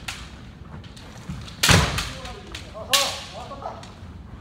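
Kendo sparring: a stamping lunge on the wooden floor with a bamboo shinai strike under two seconds in, then a second sharp shinai crack about three seconds in, followed by brief shouted kiai.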